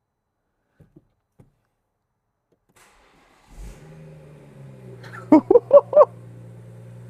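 BMW M140i's 3.0-litre turbocharged straight-six starting after a cooling-system refill: a few faint clicks, then the engine catches with a thump about three and a half seconds in and settles into a steady idle. Four short, loud pitched sounds come quickly one after another about two seconds later.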